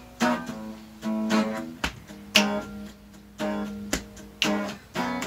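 Guitar strumming chords in an uneven rhythm, each strum ringing briefly, with a few sharp percussive clicks between strums.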